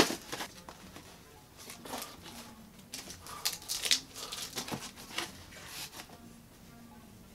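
A cardboard box being opened by hand: a scattered series of short rustles and scrapes as the cardboard flaps and packaging are pulled open.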